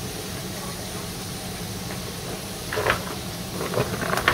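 Onions and ground spices sizzling steadily in oil in a karahi over a low steady hum. A short scrape of a wooden spatula comes near three seconds in, and near the end a clatter as chopped ridge gourd and jackfruit seeds are tipped into the pan.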